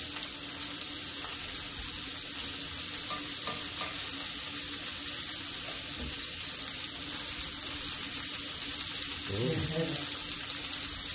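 Steady sizzling hiss of food frying in a pan, over a low steady hum, with a few faint clicks. A short murmur of a voice comes near the end.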